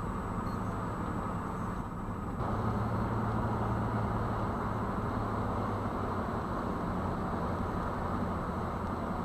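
Steady road and tyre noise with a low engine hum, heard from inside a moving car; it gets a little louder about two and a half seconds in.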